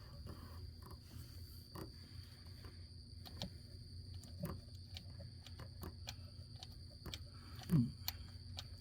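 Scattered light clicks and taps from hand tools on spark plugs over a steady low hum, with one short grunt-like vocal sound near the end.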